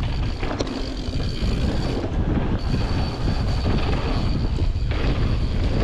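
Full-suspension Mondraker Foxy mountain bike rolling fast down a dirt forest trail: a steady rumble of knobby tyres on packed dirt, with the chain and frame rattling over bumps.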